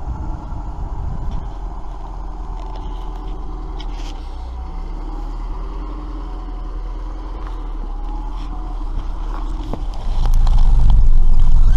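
Car engine and road noise while driving, a steady low rumble. About ten seconds in it turns suddenly much louder and heavier.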